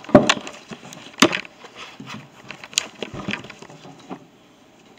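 Rolling pin rolling out noodle dough on a floured wooden tabletop: irregular rubbing and scraping with a few sharp knocks of the pin against the wood, dying away about four seconds in.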